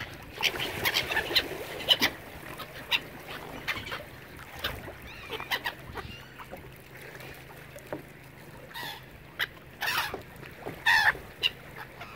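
Gulls and ducks calling in many short, harsh calls, scattered and overlapping, a few close and loud near the end.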